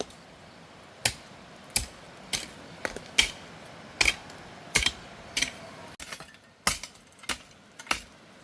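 Metal digging tool striking stony soil again and again, a sharp chink about every two-thirds of a second: the blade hitting stones in rocky ground.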